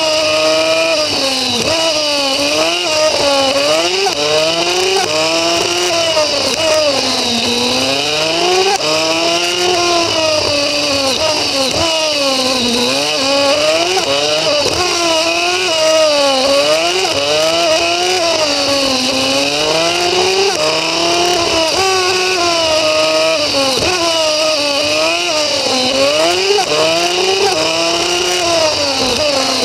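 Pit bike supermoto's engine heard from a camera mounted on the bike, revving hard and dropping back over and over, its pitch climbing and falling every second or two as the rider accelerates, shifts and brakes through the corners.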